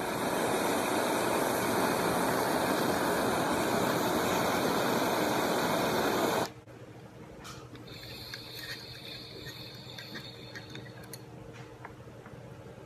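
Handheld butane torch hissing steadily as it heats the quartz banger of a glass dab rig, shut off abruptly after about six and a half seconds. A much fainter airy hiss follows for a few seconds as the dab is drawn through the rig.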